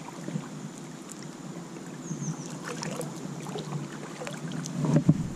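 Water lapping and trickling against a plastic sit-on-top kayak's hull as it moves along, with small scattered clicks and a louder bump about five seconds in. Faint high falling chirps, like small birds, come twice.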